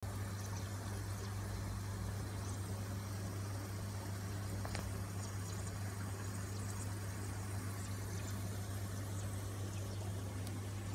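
Steady low hum of aquarium air pumps and filtration, with a faint hiss of water and bubbling.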